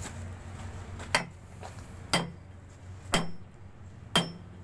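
Four hammer blows on steel, about a second apart, each with a short metallic ring: the retaining pin being driven in to lock a new tooth onto an excavator bucket.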